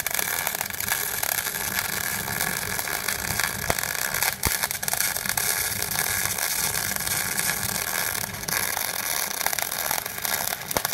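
MIG welding arc burning steadily from a tap-switch MIG welder, giving a continuous crackling hiss with an occasional sharper pop.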